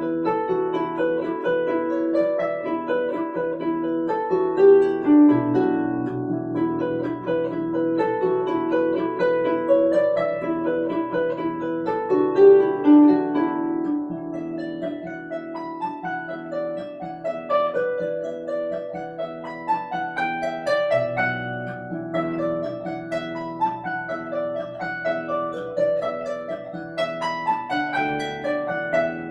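Lever harp played solo: plucked melody notes ringing over chords in the middle range. Low bass notes come in about five seconds in and again about twenty-one seconds in.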